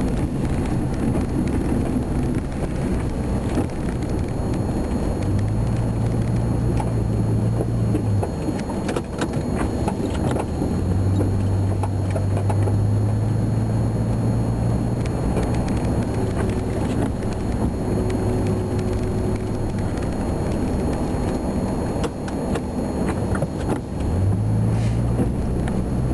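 Ford F-350's V10 engine heard from inside the cab while plowing snow. Its low engine note comes and goes as the truck pushes and backs, and rises again near the end. Scattered knocks and rattles.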